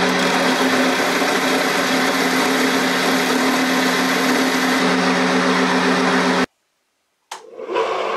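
Electric motor-driven sanding drum running with a steady hum while a steel blade edge is pressed against the spinning abrasive sleeve, giving a steady grinding hiss. It cuts off abruptly about six and a half seconds in, and after a short silence another small motor-driven grinder is heard running.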